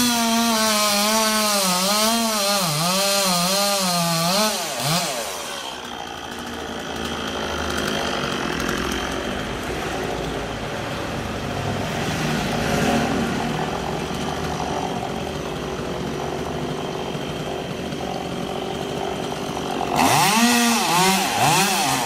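Chainsaw cutting into a palm trunk: the engine runs at high speed with its pitch wavering under load for about four seconds, then drops to a lower, rougher running sound, and revs up again in quick rising blips near the end.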